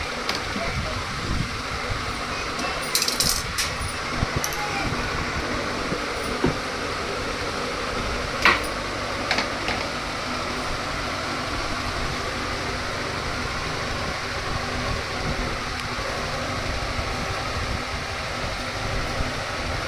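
Washing machine running with a steady mechanical hum and rumble. A few sharp clicks or knocks stand out about 3 seconds in and again around 8 to 9 seconds in.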